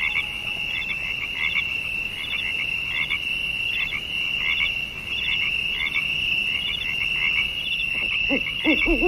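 A chorus of frogs calling in a swamp: a steady high trill with shorter calls repeating about once or twice a second. Near the end a lower, wavering call joins in.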